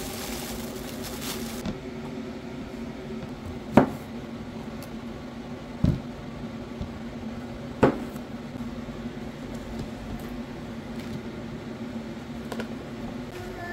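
A steady low hum with three sharp knocks about two seconds apart, and a few fainter ticks.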